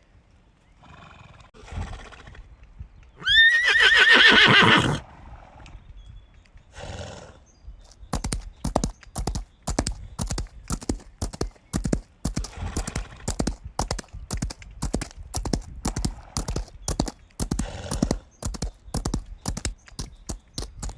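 A horse whinnies once, loud and high, falling in pitch, with softer breathy sounds before and after it. From about eight seconds in, hooves clop steadily, about four beats a second.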